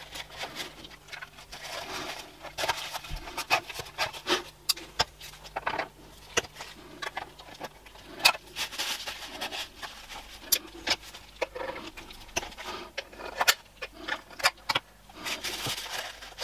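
Tissue rubbing and rustling as excess superglue is wiped off a 3D-printed plastic part, with many small clicks and taps. Midway, a craft knife scrapes and picks at the plastic around a glued-in magnet.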